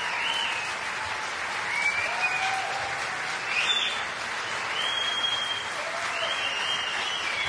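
Audience applauding steadily, with long high whistles gliding up and down over the clapping several times.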